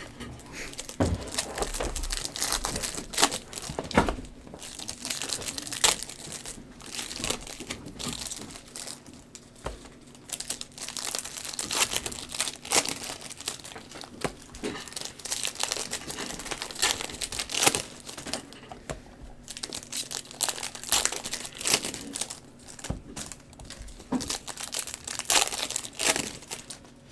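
Foil wrappers of Bowman Chrome trading-card packs crinkling and tearing as the packs are ripped open and the cards handled: irregular crackling with many short sharp clicks.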